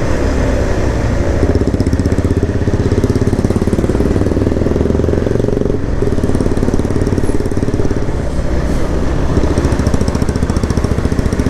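Motorcycle engine running steadily while riding, a continuous drone heard from the rider's seat.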